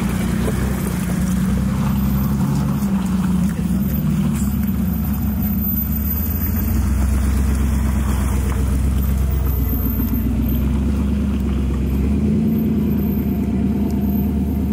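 Jeep Grand Cherokee WK2 running, a steady loud low drone of engine and drivetrain.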